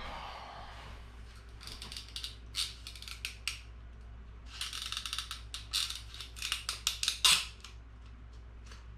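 Freshly developed 35 mm film being pulled and unwound off a plastic developing-tank reel by hand: quick scratchy, clicking strokes in two runs, with a sharper click about seven seconds in.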